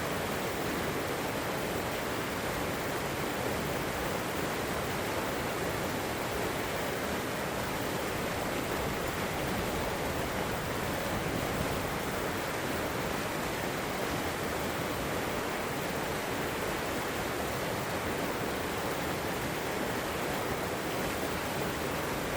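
Shallow river water flowing and rushing over rocks: a steady, even rush of water noise.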